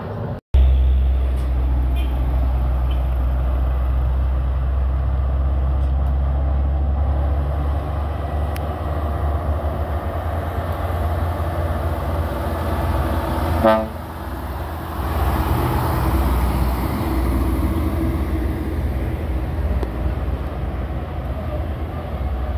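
Heavy diesel truck engine running steadily under load, a strong low rumble. About 14 seconds in comes a short horn toot.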